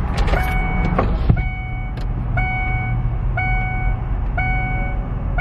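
A vehicle's warning chime sounding in the cabin, the same short ringing tone repeated about once a second, over a steady low rumble. A few clicks come first.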